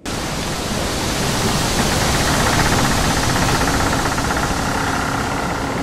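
Loud, steady rushing hiss of noise that starts suddenly.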